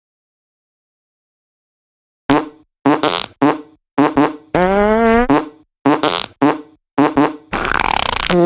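A rapid string of fart sounds starting about two seconds in: about a dozen short, pitched blasts. One longer blast about halfway rises in pitch, and a longer raspy one comes near the end.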